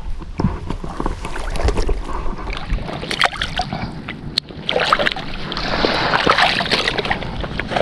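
Wind buffeting the microphone over choppy water, with rustling and knocks from handling a waterproof dry bag as a fish is stowed in it; the rustling is busiest in the middle.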